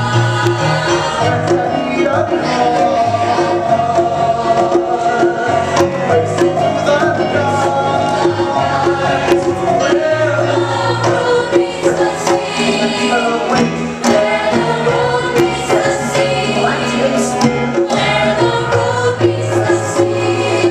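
Stage-musical cast singing together in chorus, backed by a live band with a drum kit and held bass notes.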